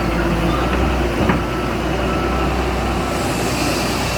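Heavy diesel engine of earth-moving machinery running steadily, with a reversing alarm beeping in short repeated tones. A single metallic clank comes a little over a second in.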